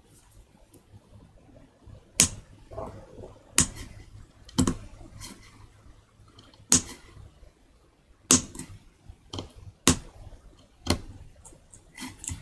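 Small carving chisel cutting into a wooden woodblock-print block, making sharp, short clicks at an irregular pace of roughly one every second or so, over a low hum.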